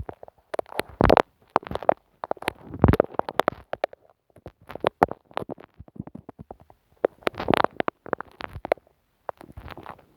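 Close-miked sticky crackling and tapping from glue on a microphone: irregular bursts of clicks and crackles, each a fraction of a second to about a second long, with short silent gaps between.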